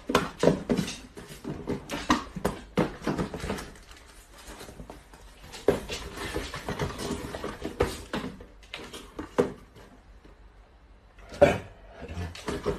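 Small cardboard boxes being handled and packed into a carton: a busy run of knocks, taps and rustles, easing off near the end, then one loud knock and a few more.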